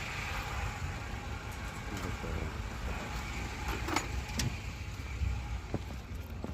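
A motor vehicle engine idling steadily, with a few sharp metallic clicks about four seconds in.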